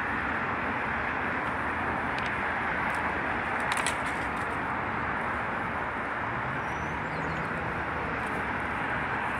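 Steady loud ambient hiss around a parked electric rail grinder car in a subway yard, with a few faint crackles about two and four seconds in.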